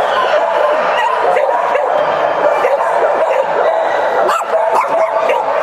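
Many dogs barking, yipping and whining all at once, a steady overlapping din with no pause.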